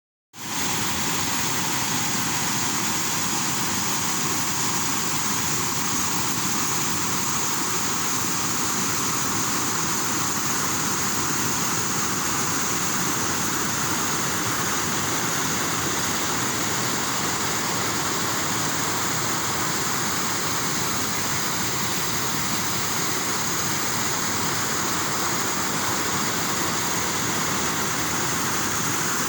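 Rain falling steadily: an even, unbroken hiss with no let-up.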